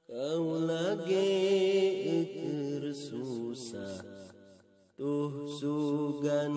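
A voice chanting a Sundanese nadoman, a devotional sung poem, in long, drawn-out melismatic notes. There is a short break near the end before the next phrase begins.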